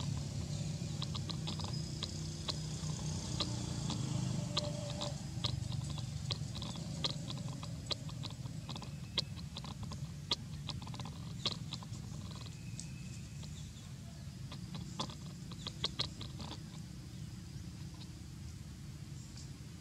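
Scattered sharp clicks and crackles of a twig and dry leaf litter as a baby monkey gnaws on a twig and moves about, with a brief cluster of clicks about three-quarters of the way through, over a steady low hum.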